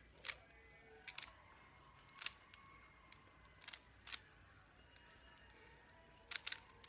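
Sharp plastic clicks from a 3x3 speed cube being handled and turned, single clicks about a second apart, then a quick cluster near the end.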